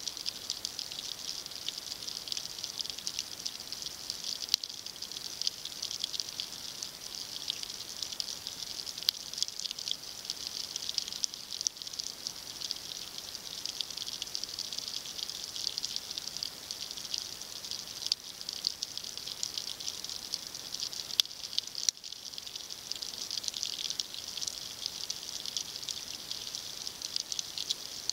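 Dense, steady crackling of many fine clicks from snapping shrimp on a rocky reef, recorded underwater, with a few sharper clicks standing out now and then.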